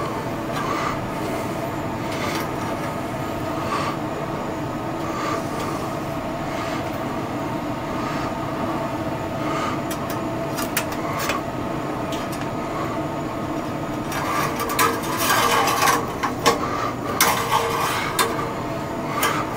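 Steady hum of running machinery with several steady tones. From about ten seconds in, clicks and cloth rustling as the engine's oil dipstick is pulled and wiped with a rag.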